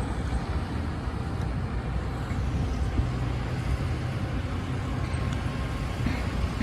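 Diesel engine of a Doosan DX225LC tracked excavator running with a steady low rumble.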